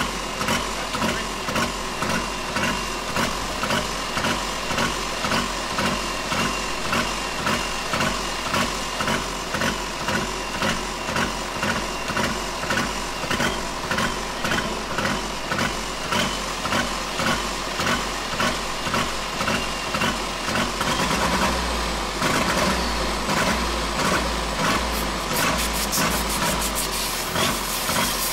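Turbocharged three-cylinder diesel in a garden pulling tractor running rough with a heavy, regular pulsing beat, picking up briefly about three-quarters of the way in. It runs poorly on bad injectors: only the middle one fires properly, and the other two are fouled.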